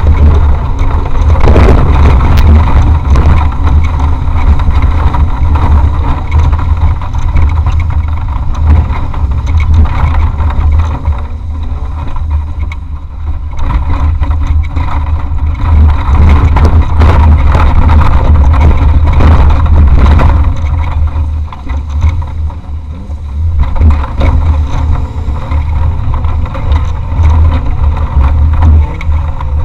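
Off-road racing vehicle driving hard over rough terrain, heard from inside: a loud engine drone with a heavy low rumble and frequent knocks and rattles from the bumpy ground. The engine eases off twice, about a third and two thirds of the way through, then picks up again.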